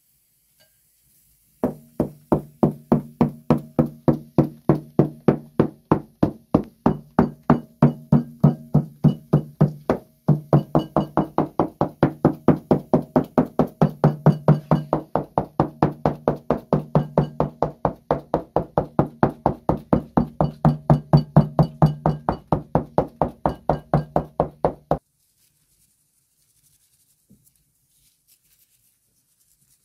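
Rapid, even knocking, about four a second, of fingertips jabbing dimples into a round of flatbread dough on a wooden peel. It pauses briefly about ten seconds in and stops suddenly a few seconds before the end.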